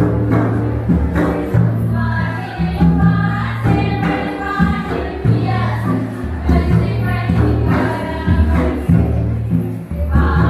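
Music with singing voices over a heavy bass line whose notes change every second or two.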